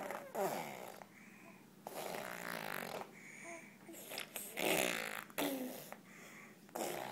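A baby vocalizing in about four short stretches of rising and falling pitch, with quieter gaps between them.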